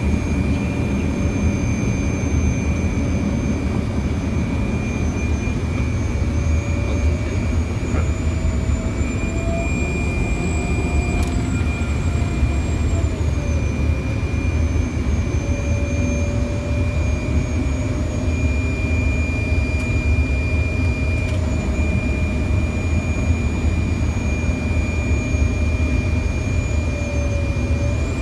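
Fokker 100 cockpit noise on approach: a steady low rumble of airflow and the jet engines, with a steady high whine and an engine tone that drops about halfway through and climbs again near the end.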